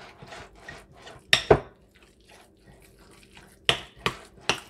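A utensil stirring ricotta cheese, egg and chopped parsley in a glass mixing bowl: soft scraping with irregular clinks against the glass, and a few sharper knocks about a second and a half in and again near the end.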